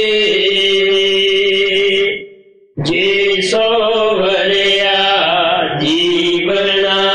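A voice chanting a devotional hymn in long, drawn-out held notes that waver slightly in pitch. The chant breaks off about two seconds in and picks up again just before the three-second mark.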